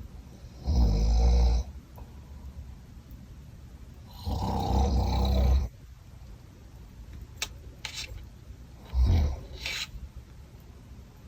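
Loud snoring: three snores about four seconds apart, the last one shorter.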